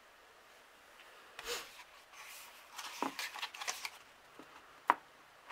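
Paper handling: a softcover photo book being picked up and opened, its pages and cover rustling and sliding under the hands, starting about a second and a half in. One sharp tap near the end.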